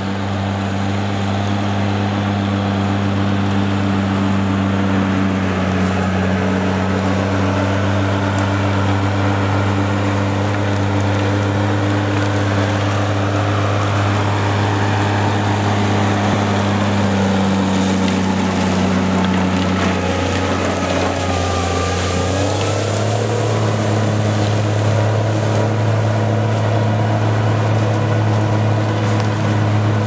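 NOE forestry tractor's diesel engine running steadily under load as the machine drives along a forest track, its pitch shifting about three-quarters of the way through as it passes close by.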